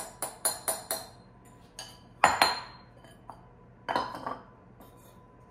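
A small glass bowl knocked against the rim of a glass mixing bowl to empty flour into it, five quick clinks in the first second. Then scattered clinks and clatters of glass bowls and a fork on the counter, the loudest a little past two seconds in.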